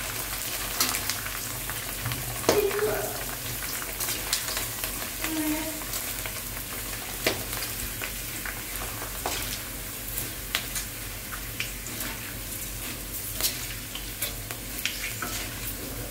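Kerupuk crackers deep-frying in hot oil in a wok: a steady sizzle with frequent sharp crackles and pops as they puff up, stirred with a metal slotted spatula.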